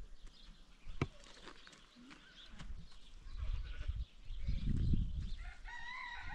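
A goat bleating: one drawn-out call near the end, over a low rumble.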